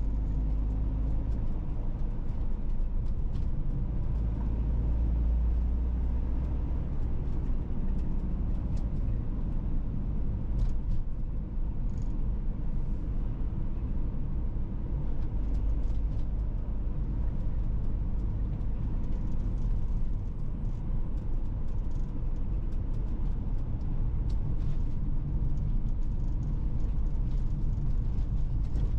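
A car being driven along a road, heard as a steady low rumble, with a few faint ticks here and there.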